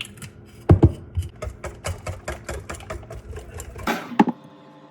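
A hand utensil, likely a whisk or spoon, knocking rhythmically against a mixing bowl as mochi batter is stirred by hand. The quick, even strokes come about five a second, with a couple of heavier knocks at the start and near the end.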